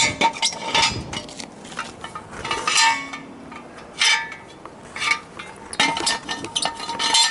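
Pneumatic impact wrench hammering in short bursts at the wheel's lug nuts, with metal clanking and clinking between the bursts.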